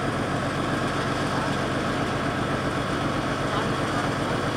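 Diesel locomotive engine chugging steadily as it hauls a passenger train slowly in, with a fast, even low throb under a dense engine noise.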